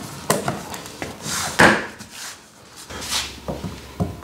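Several knocks and clatters from vinyl flooring planks being handled and laid on the floor, the loudest about one and a half seconds in.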